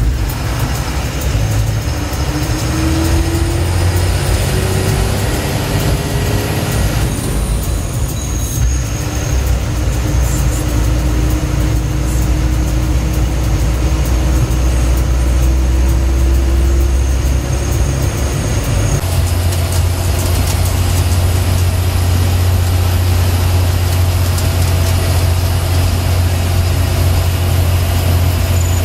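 Ashok Leyland bus's diesel engine running on the road as a heavy low drone. A thin whine rises slowly in pitch twice as the bus gathers speed, and about two-thirds of the way in the drone settles to a steadier, even note.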